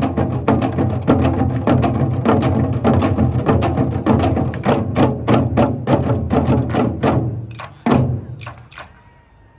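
Korean janggu hourglass drums played by an ensemble in a fast, driving rhythm of dense strikes. The playing thins out about seven seconds in, ends on one loud final strike about eight seconds in, and a few lighter taps die away after it.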